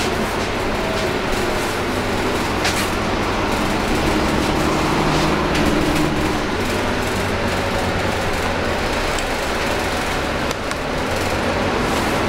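Volvo B9TL double-decker bus, a rear-engined inline-six diesel, heard from inside on the upper deck while under way: a steady engine drone and road noise, with a few sharp interior rattles.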